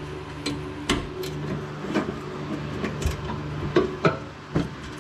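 Irregular metallic clicks and clinks of a socket wrench working a nut on a garden tractor's deck-belt idler pulley, over a steady low hum.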